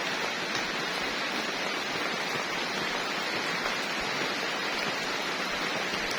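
Steady, even hiss with no let-up.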